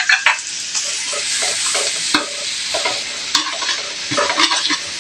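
Minced garlic frying in melted butter in a hot wok, sizzling steadily. A metal utensil scrapes and knocks against the wok several times as the garlic is stirred.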